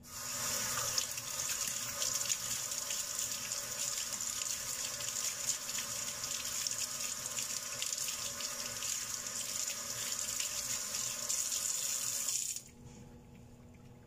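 Water running from a kitchen sink's lever tap into the basin while hands are washed under the stream. The water is shut off abruptly near the end.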